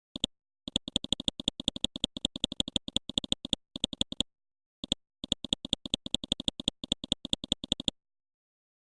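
Bursts of rapid, identical sharp clicks, about eight or nine a second, with dead silence between the bursts: a long run in the first half, a few short breaks, then another long run that stops about a second before the end.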